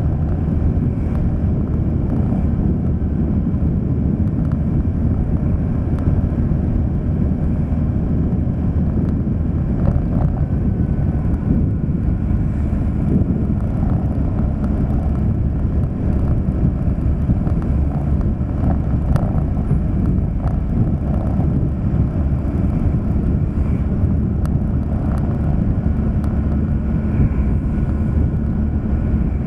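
Steady low rumble of a moving vehicle: engine and road noise, unbroken throughout.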